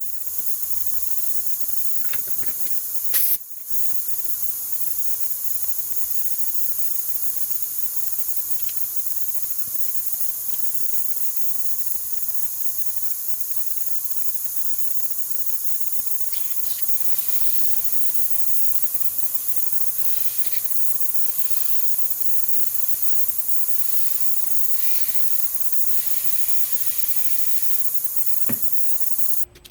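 A steady high-pitched hiss, with a short louder burst about three seconds in and a few faint ticks. It cuts off suddenly at the end.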